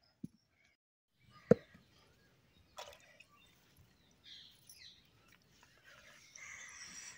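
Ragi mudde (finger-millet dough) being worked by hand: a short thud at the start, one sharp knock about a second and a half in, then faint soft handling sounds as the dough is patted on a stone.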